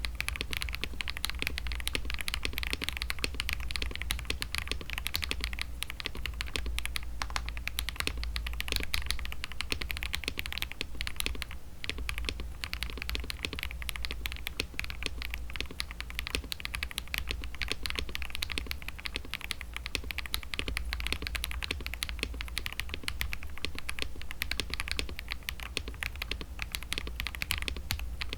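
Continuous fast typing on a KBD67 Lite mechanical keyboard fitted with lubed Akko CS switches: a dense stream of key clacks, thinning briefly about twelve seconds in.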